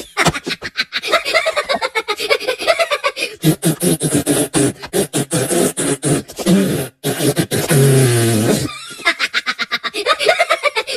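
Beatboxing: fast vocal clicks and pops, with stretches of pitched, sung-sounding voice in the middle and a short break about seven seconds in.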